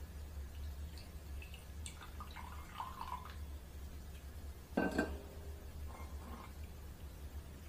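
Rum poured from a glass bottle into a glass mug, glugging and trickling for a couple of seconds. About five seconds in, the bottle is set down on the concrete floor with a sharp knock, followed by a few faint clinks.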